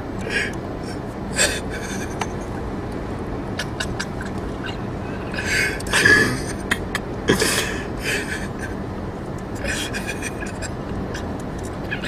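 Steady traffic rumble with scattered short, breathy bursts of stifled laughter and gasps, the biggest about six and seven and a half seconds in.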